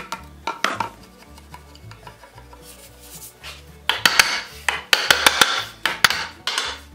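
Three long scraping strokes of a hand tool across wood, with sharp clicks, starting about four seconds in, over background music with a steady bass line.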